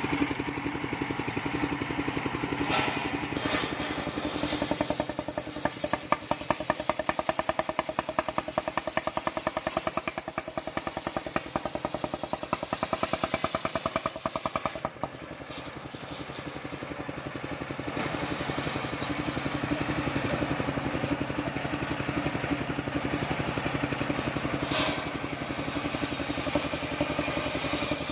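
Engine-driven circular saw bench ripping a waru log, the engine running with a steady fast pulse while the blade cuts. The sound drops briefly about halfway and builds back up, with a few sharp knocks of wood on the saw table.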